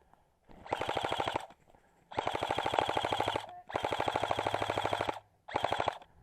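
Airsoft rifle firing on full auto in four rapid bursts. The middle two bursts are the longest, at about a second and a half each, and the last is very short.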